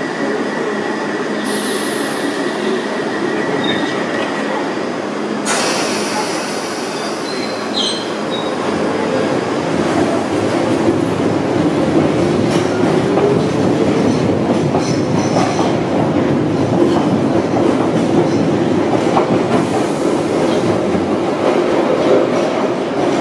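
London Underground 1973 Stock tube train pulling out of the platform. There is a sudden burst of noise about five seconds in; then the train gathers speed with a rising motor whine and growing rumble of wheels on rail, with some wheel squeal.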